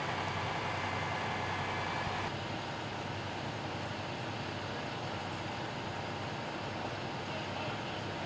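Fire engine running at a fire scene: a steady mechanical drone with a low hum. About two seconds in it changes abruptly to a slightly quieter, duller drone.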